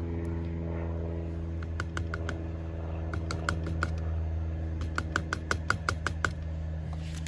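A run of light, sharp metallic clicks and taps as a wrench works the brass hose fittings of an HVAC manifold gauge set. The connections are loose and letting the vacuum leak down. The clicks come quicker in the second half, over a steady low hum.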